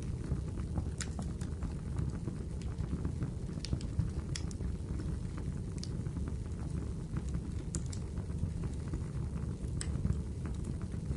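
Wood fire in a fireplace crackling: sharp pops every second or two over a steady low rumble of burning.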